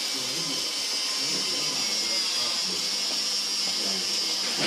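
Small electric motors of a student-built contest robot whirring steadily, with a constant high-pitched hiss and faint voices in the background.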